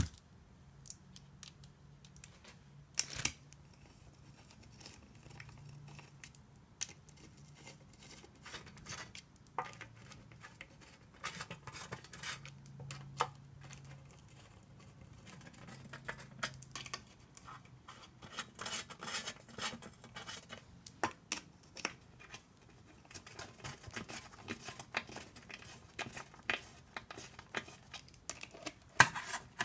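Hand tools working the oil pan bolts of a 42RE automatic transmission: scattered metal clicks, taps and ratcheting as the bolts are tightened with a torque wrench set to 13 foot-pounds. The clicking grows busier in the second half.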